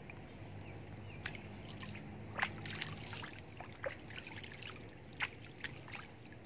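Small splashes and drips of pond water as fish feed is sprinkled from wet hands onto the surface, a scattering of short plops starting about a second in.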